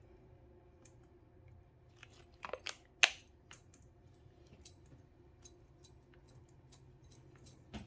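Quiet handling sounds of epoxy-resin work on a glass: scattered light clicks and taps of a tool against the glass and its holder, a few in quick succession with the sharpest click about three seconds in, over a faint steady low hum.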